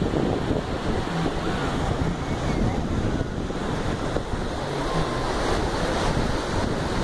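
Shallow surf breaking and washing in around the waders, with steady wind buffeting the microphone.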